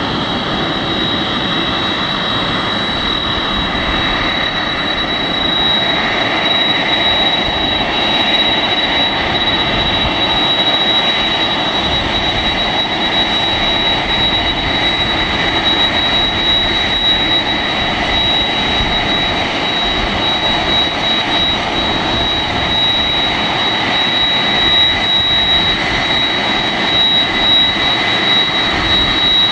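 Boeing 747's four jet engines running at taxi power as the jumbo rolls toward the listener: a steady jet rumble with a high, continuous whine over it, growing a little louder about six seconds in.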